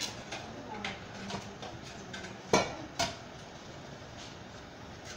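Metal rod clinking and knocking against the concrete drain opening as it is jabbed down to clear a clogged canal: a few light knocks, then two louder ones about two and a half and three seconds in.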